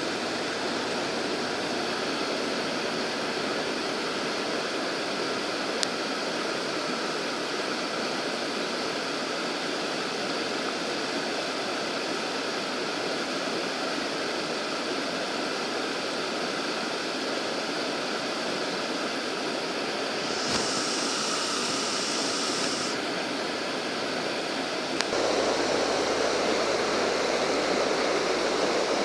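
Steady rushing of flowing water, an even unbroken noise. A thin higher hiss joins it for about two seconds near the two-thirds mark, and about 25 seconds in the water sound turns louder and fuller.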